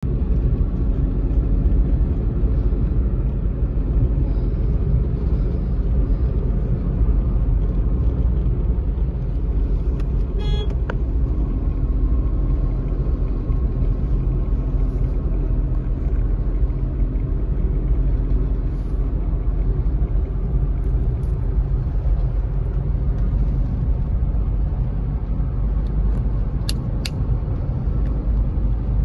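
Steady low rumble of a moving car heard from inside the cabin: engine and road noise at speed. A brief sharp sound comes about ten seconds in, and two short clicks come near the end.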